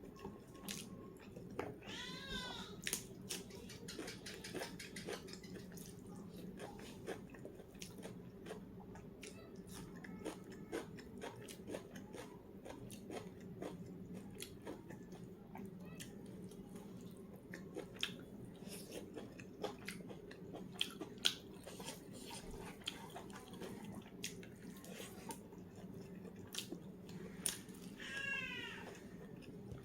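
Close-up eating sounds: chewing, smacking and small mouth clicks as rice and curry are eaten. Twice a short, high cry rises and falls, once about two seconds in and once near the end.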